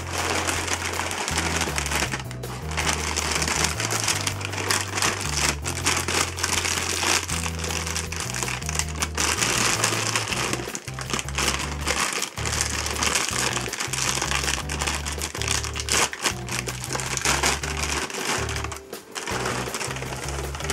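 Clear plastic cereal-bag liner crinkling and rustling as hands squeeze it and pull its sealed top open, over background music with a steady bass line.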